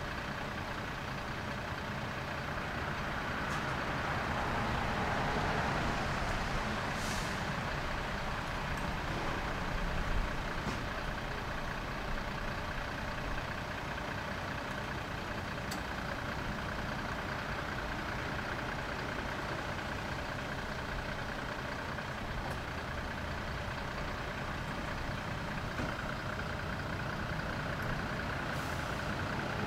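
Heavy diesel truck engines running steadily, with short hisses of air about seven seconds in and near the end.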